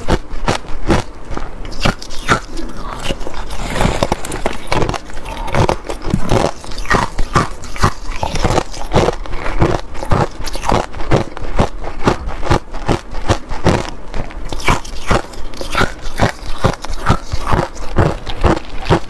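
Ice being bitten and crunched between the teeth, close to a clip-on microphone: a loud, continuous run of sharp cracks and crunches, several a second.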